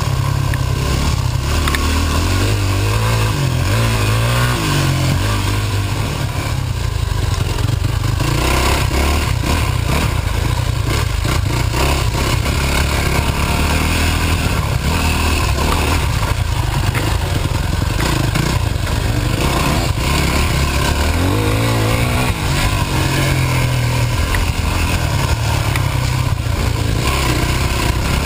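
Dirt bike engine running under way on a trail, its revs rising and falling with the throttle, with noise from wind and the bike over rough ground.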